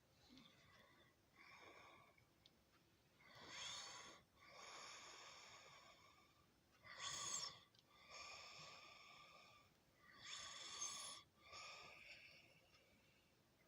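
A person snoring softly, in three slow breath cycles, each a short sharper snore followed by a longer, softer breath.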